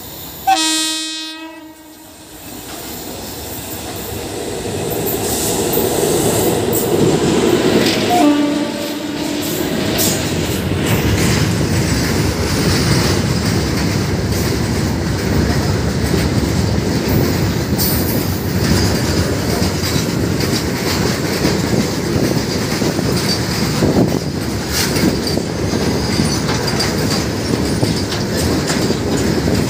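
Locomotive horn: a loud blast of about a second and a half near the start and a shorter one around eight seconds in, then a long goods train of open wagons rolling past close by, its wheels clattering steadily over the rail joints.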